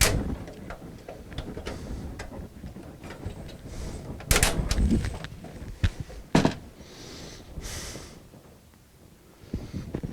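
Clicks, knocks and scraping of a screwdriver and hands working at stubborn motherboard screws in a metal computer case, with two louder knocks a little before halfway and about two-thirds through.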